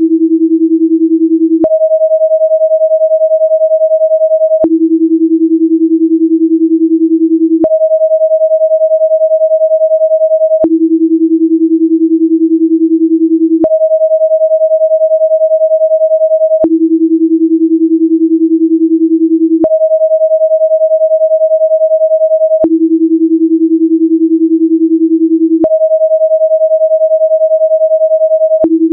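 Pure sine tones for binaural beats, pitched 10 Hz apart in the left and right channels. They alternate every three seconds between a low tone and one about an octave higher, with a faint click at each change.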